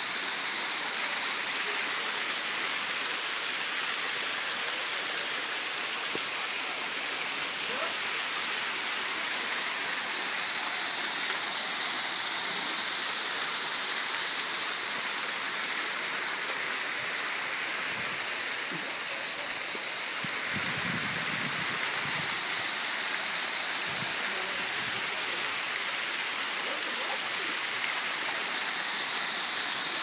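Waterfall falling onto rocks: a steady, dense rushing hiss of pouring and splashing water, easing slightly about two-thirds of the way through before returning to full strength.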